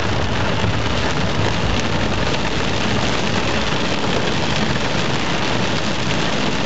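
Torrential rain pelting a car's roof and windshield, heard from inside the moving car as a steady, dense hiss, with the car's running noise underneath.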